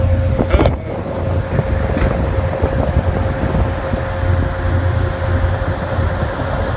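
A vehicle running steadily: a continuous low rumble with a steady high whine held over it, and a couple of faint clicks early on.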